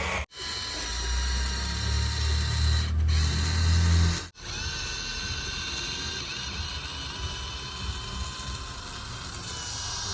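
Small electric motor of a remote-control toy vehicle whirring with a steady high whine that drifts slightly in pitch. The sound cuts out briefly twice, just after the start and about four seconds in, and a low rumble runs under it until the second cut.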